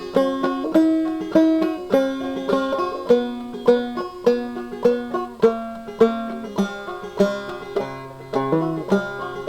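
Banjo music: a plucked tune with a steady beat, lower notes coming in about three-quarters of the way through.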